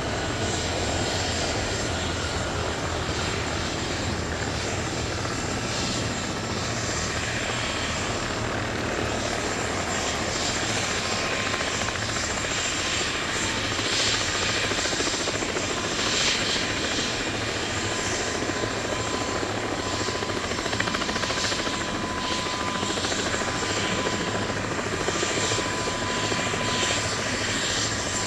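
Airbus Helicopters EC155B1 (H155) with its twin turboshaft engines running and rotors turning on the ground: a steady low rotor beat under broad rushing noise, with thin high turbine whines held at a constant pitch.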